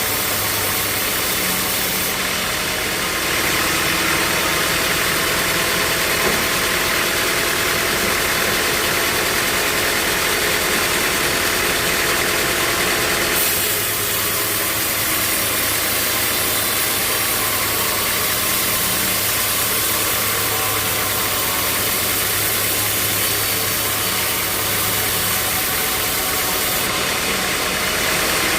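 Sawmill machinery running steadily: an engine hum under a loud, even hiss, shifting slightly about three seconds in and again about thirteen seconds in.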